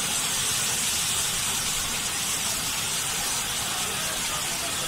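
Steady hiss of steam venting from a steam locomotive.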